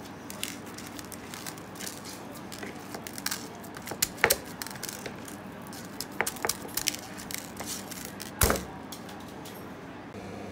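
Hands rubbing seasoning into raw tri-tip steaks and turning them over on a ceramic plate: scattered wet slaps, rubbing and small clicks, with two louder knocks about four and eight and a half seconds in.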